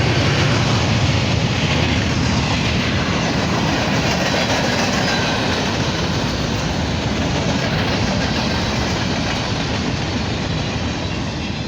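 Norfolk Southern freight train's cars rolling past, with a steady rumble and wheel-on-rail noise that slowly fades toward the end.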